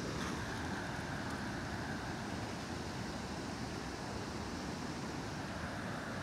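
Steady rush of river water pouring over a weir, with wind buffeting the microphone.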